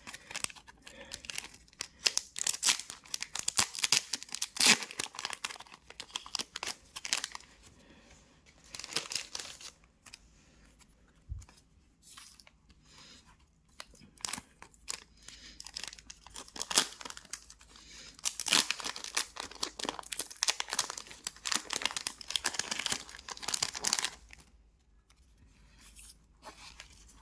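Trading card pack wrappers being torn open and crinkled by hand, in repeated bouts of crackling rustle with short pauses between them, easing off near the end.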